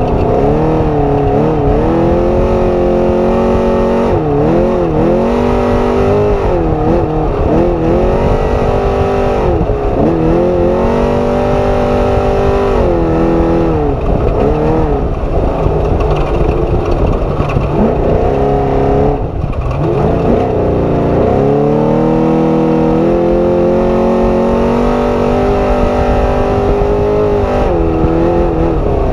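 Trophy truck's engine at race pace, heard from inside the cab: the revs climb and fall again and again as the throttle is lifted and reapplied, with a deeper drop about two-thirds of the way through, over a constant rumble from the ride.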